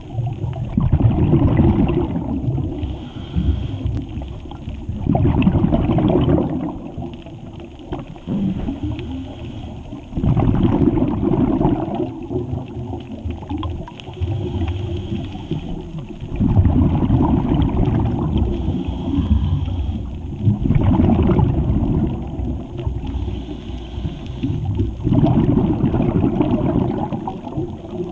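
Scuba diver's regulator heard underwater: a muffled bubbling burst on each exhale, coming about every four to five seconds, over a low steady water rumble.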